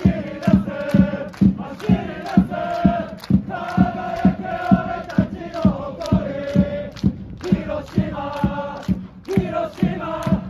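Football supporters chanting in unison, a crowd of voices singing long held notes to a steady low beat of about two beats a second, with brief breaks between lines.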